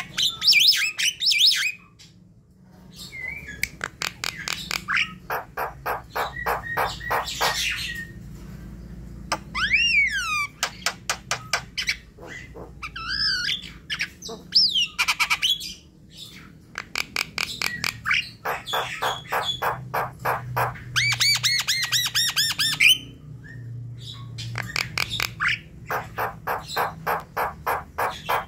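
Javan myna singing: runs of rapid harsh chattering notes, several a second, mixed with whistled notes that sweep up and down.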